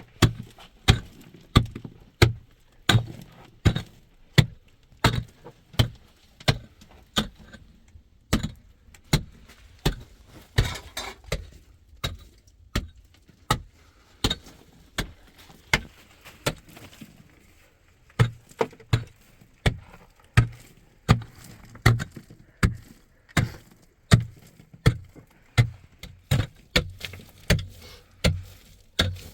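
Repeated blows of a hand tool, steady and rhythmic, about three every two seconds, each a sharp strike with a dull thud, pausing briefly about two-thirds of the way through.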